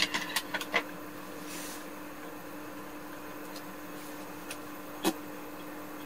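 Several light clicks and taps in the first second, then one sharper tap about five seconds in, like eating utensils knocking on dishes, over a steady low hum.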